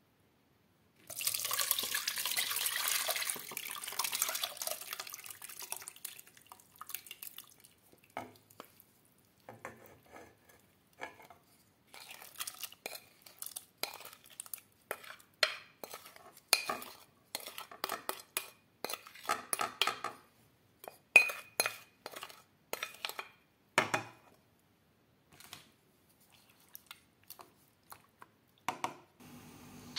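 Diced watermelon rind and its soaking liquid being tipped from a glass bowl into a pot, a wet sliding, splashing rush during the first few seconds. Then many short sharp clicks and scrapes as a utensil knocks and scrapes the last pieces out of the bowl and against the pot, with a couple of knocks near the end.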